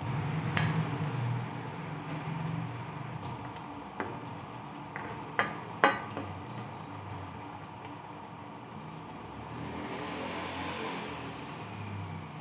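Metal spoon stirring cabbage and string beans cooking in coconut milk in an aluminium wok, with a few sharp clinks of the spoon against the pan, the loudest about five to six seconds in.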